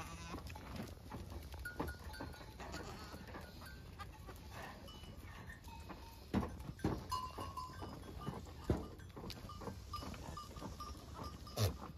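A herd of goats milling in a pen, with scattered short bleats throughout and a few sharp knocks in the second half.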